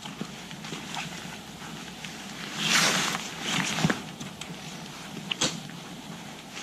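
Nylon webbing straps and plastic buckles of an MEC Super Slogg 115 backpack being handled: the fabric rustles, a longer swish comes about three seconds in as a strap is pulled, and there are a few sharp clicks.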